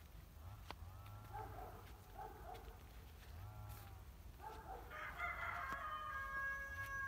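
Rooster crowing: a long, loud crow that starts about five seconds in and is held level, with shorter calls before it.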